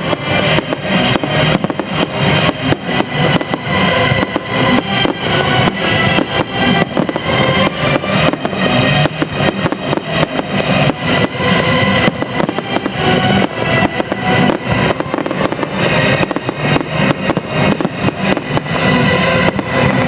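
Aerial fireworks going off in a dense, fast run of bangs and crackles over loud music.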